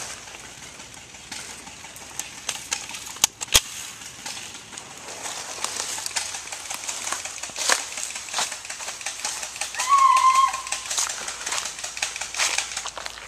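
Rustling and scattered light clicks from someone moving with the camera through a leafy backyard. Two sharp snaps come a few seconds in, and a short chirp near the end.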